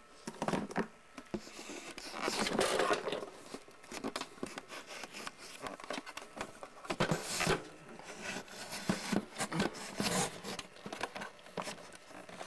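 Irregular rustling, scraping and light knocks of plastic action figures and props being handled and moved about, with a few louder swells of rustling.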